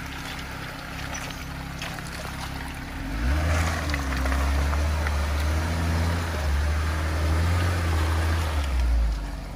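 Jeep Wrangler engine revving under load as its front tyre spins and claws through a muddy rut, with dirt spraying off the tread. The engine picks up about three seconds in, runs hard for about six seconds, then eases off near the end.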